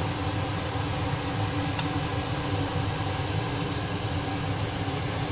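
Steady mechanical whir with a low hum, like a fan running in the kitchen.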